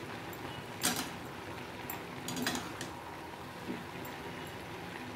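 A spatula stirring chopped vegetables in a steel kadai: a few scattered clicks and scrapes against the pan, the loudest about a second in, over a faint steady hiss.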